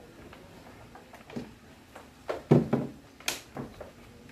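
Loose cables and plugs being handled and dragged across a wooden console top: a series of short knocks and clatters, the loudest a little past the middle.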